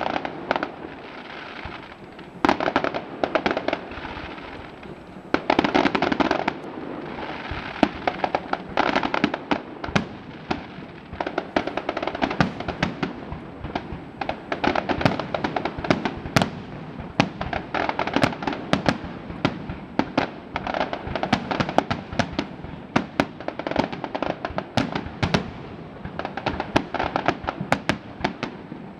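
Fireworks display: rapid sharp bangs and crackling shells, in clusters every few seconds at first, then a nearly unbroken barrage of reports.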